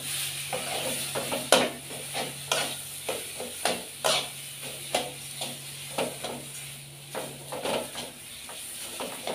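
A spatula scrapes and knocks irregularly against a metal kadai while stirring mashed jackfruit seeds, onion and spices, over a faint frying sizzle.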